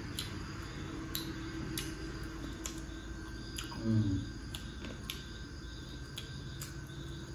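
Close-up eating sounds of roasted chicken wings being eaten by hand: irregular small wet clicks and smacks from chewing and the lips. A brief low hum of a voice, like an 'mm', about four seconds in is the loudest moment.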